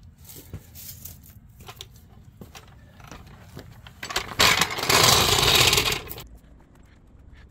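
Steel floor jack dragged out from under a vehicle by its handle, its wheels rolling and rattling over the ground for about two seconds, starting about four seconds in. Before that there are only faint clicks and light handling noise.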